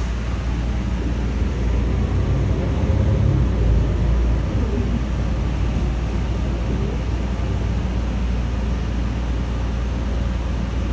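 Ride inside a moving New Flyer Xcelsior XN40 natural-gas city bus: a steady low rumble from the Cummins L9N engine and drivetrain under road noise, swelling a little louder about three seconds in.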